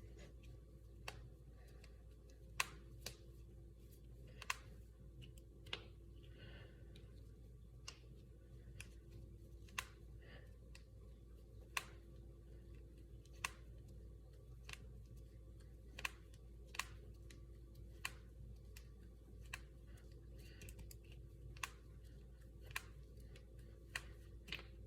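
Finger and knuckle joints cracking: single sharp pops at irregular intervals, roughly one every second or so, some much louder than others.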